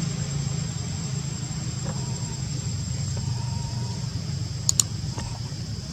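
Steady low rumble with a continuous high, even insect drone over it, and two sharp clicks close together nearly five seconds in.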